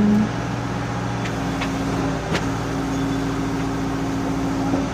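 A machine's engine running steadily at a construction site, its louder tone cutting off just at the start, with a few sharp clicks or knocks about one to two seconds in.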